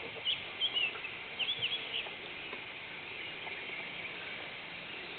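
A few short, high bird chirps in the first two seconds, then only faint background noise.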